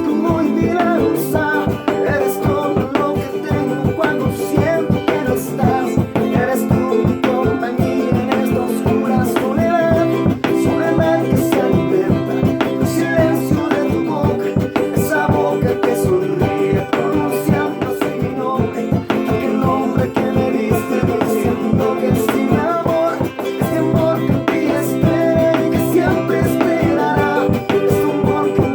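Acoustic guitar strummed in a steady, quick Bolivian folk rhythm, with a melody line carried over it.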